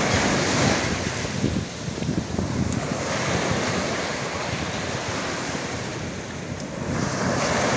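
Small sea waves breaking and washing up a sandy beach, with wind buffeting the microphone. One wave breaks right at the start, and another swells in near the end.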